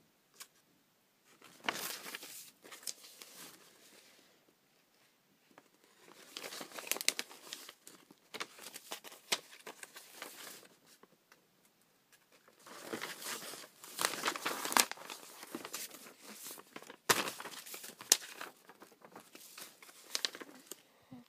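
Sheets of printed paper pictures rustling and crinkling as they are handled and shuffled, in several bursts a few seconds long with a few sharp taps among them.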